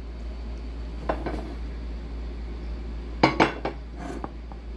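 Kitchenware being handled: dishes and utensils clinking and knocking against each other, with a quick cluster of sharp knocks about three seconds in.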